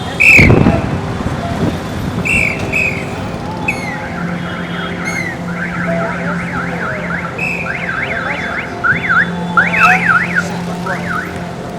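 Electronic car alarm sounding over street traffic: a loud falling chirp at the start and a few more short chirps, then rapid up-and-down warbling sweeps in repeated runs.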